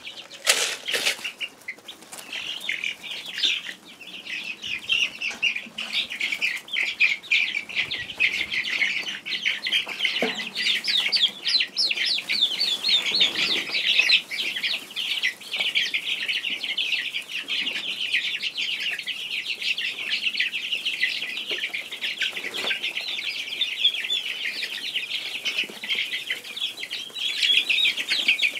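A flock of young chickens peeping continuously in a dense, busy chorus of high chirps, with a sharp knock about half a second in.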